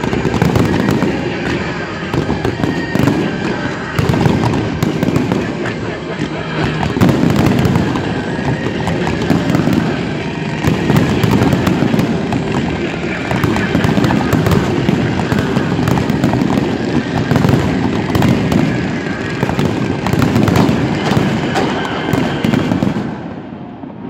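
Fireworks finale: a dense, continuous barrage of overlapping bangs and crackling shells, dying away near the end.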